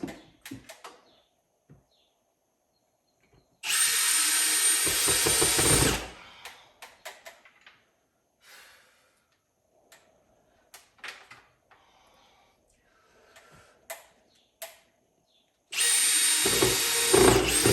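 Power drill running in two bursts of about two seconds each, one about four seconds in and one near the end, with light clicks and knocks of handling in between.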